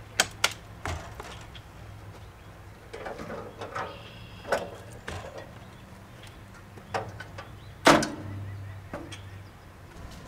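Travel trailer entry door and its fold-down metal steps being worked: a string of latch clicks and metallic knocks and clatters, with the loudest clank about eight seconds in.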